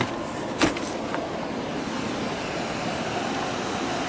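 Blue plastic tarp rustling and crackling as it is pulled off, with sharp snaps at the start and about half a second in, over a steady rushing noise.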